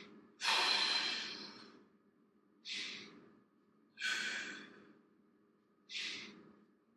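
A man taking slow, deep breaths while holding a thoracic rotation stretch: four audible breaths, the first long and loudest, the next three shorter at roughly even spacing. The deep breathing is used to ease the chest open into more rotation.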